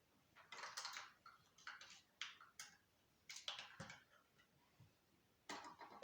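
Faint light clicks and rustles of Lego plastic parts being handled and set down, with a slightly duller knock about four seconds in.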